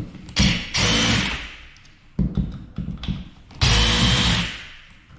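DeWalt cordless impact driver backing out the screws of a wall outlet, which may be stripped. It runs twice, in bursts of about a second, with a few short blips between them.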